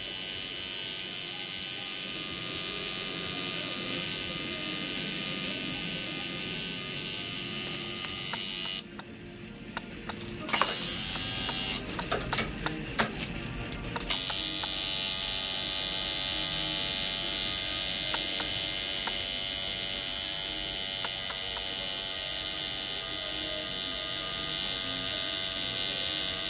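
Electric tattoo machine buzzing steadily as its needle works into skin. It stops about nine seconds in, starts briefly again, stops once more, and runs on from about fourteen seconds in, with a few light clicks during the pauses.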